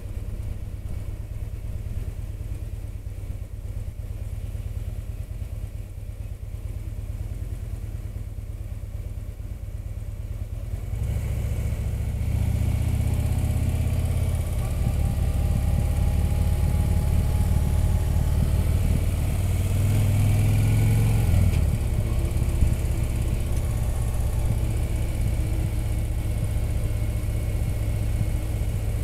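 Motorcycle engine running on the move, heard from the bike itself. It is quieter at first, then about a third of the way in it grows louder and wind rush joins it, and the engine note rises and drops a couple of times with the throttle.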